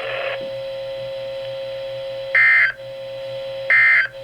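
Emergency Alert System (SAME) end-of-message data bursts: short, shrill digital squawks about 1.4 seconds apart, two of them here, over a steady buzzing tone. A hiss of static cuts out about half a second in.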